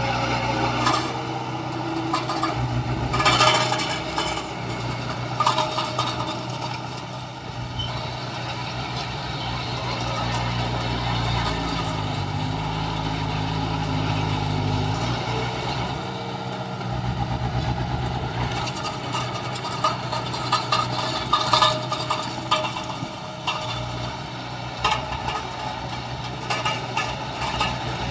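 Heavy diesel construction machinery running steadily, with scattered metallic clanks and clatter, loudest a few seconds in and again around twenty seconds in.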